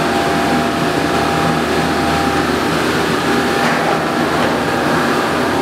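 Sea to Sky Gondola terminal machinery running: a steady mechanical hum with several constant tones as a cabin moves through the station under the bullwheel.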